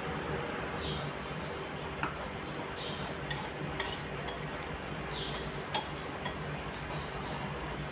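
Wire whisk beating a runny egg and vegetable batter in a glass bowl: soft wet swishes with scattered sharp clinks of the whisk against the glass.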